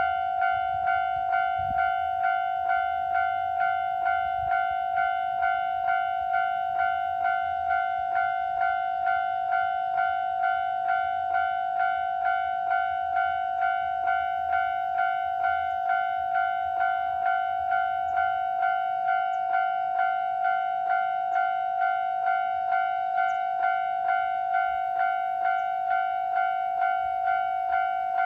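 Japanese level crossing's electronic warning bell ringing in a steady, even clang, about one and a half strikes a second, signalling that a train is approaching or passing. A train's faint low rumble runs beneath it and fades out about two-thirds of the way through.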